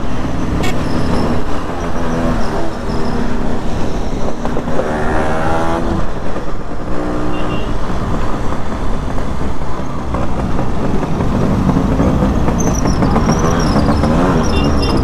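Yamaha RX100's two-stroke single-cylinder engine running on the move, heard from the bike, with other motorcycles riding close alongside. About five seconds in, an engine note climbs in pitch and falls back as the throttle is worked.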